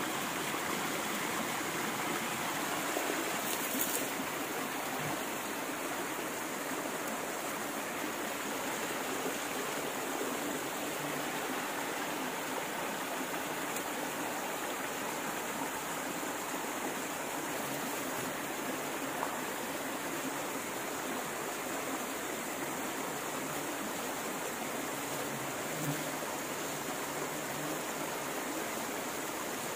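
Steady, even rushing noise with a faint high-pitched hiss over it, and one brief sharp sound about four seconds in.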